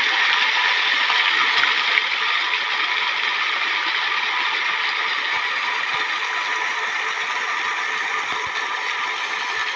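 A pump's outlet jet spraying a strong stream of water that splashes steadily onto a pond's surface, with the pump running underneath.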